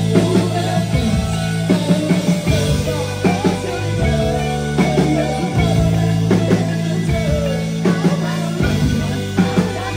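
Live rock band playing electric guitars, bass guitar and drum kit: regular drum hits over a bass line of held low notes that change every second or so.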